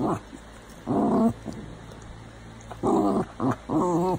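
Cocker spaniel growling and grumbling in play, in about five short bursts, some with a wavering pitch, the last three close together near the end.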